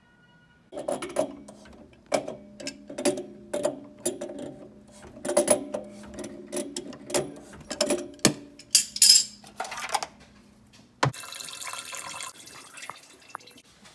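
Repeated metallic knocks and clinks of a pipe wrench working a brass fitting on an electric water heater, then a short hiss near 9 s. About 11 s in a sharp knock, then a toilet flushing with a rush of water.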